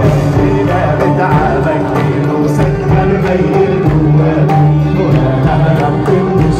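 A live orchestra and band play Arabic pop music with a steady percussion beat.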